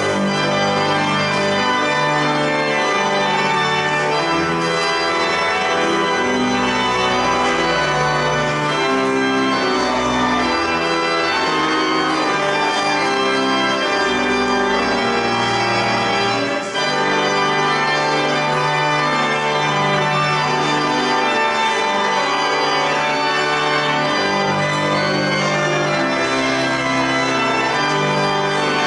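Church organ playing full sustained chords that change every second or so; it comes in suddenly at the start, with one brief break about two-thirds of the way through.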